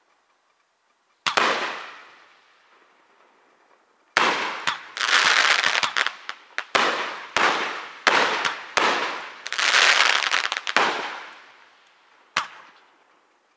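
Aerial fireworks shells bursting. One bang comes a little over a second in, then a rapid barrage of overlapping bangs runs from about four seconds to eleven, and a last single bang comes near the end. Each bang trails off in echo.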